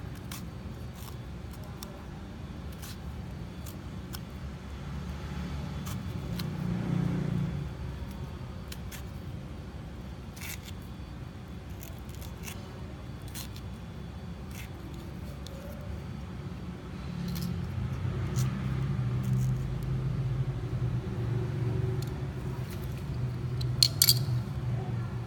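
A small folding knife slicing banana peel into pieces by hand, with scattered light clicks and snicks of the blade through the peel, under a low background rumble that swells twice. A sharper click comes near the end.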